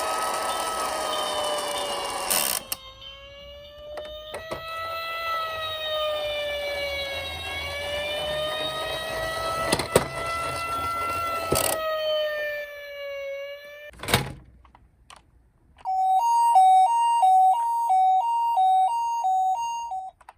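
Electronic siren sounds from toy emergency-vehicle minicars: first a slow wailing siren rising and falling in pitch with a few sharp clicks, then after a click and a short pause, a two-tone hi-lo siren alternating quickly between two notes.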